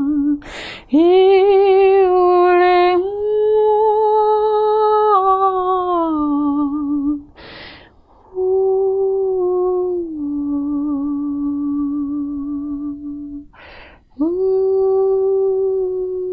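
A single voice singing long wordless held notes with vibrato, stepping up and down between a few pitches in three long phrases, with a breath drawn between them.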